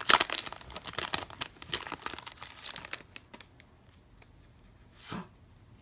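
Plastic wrapper of a trading-card pack crinkling and tearing for about three seconds, then a few faint ticks and rustles.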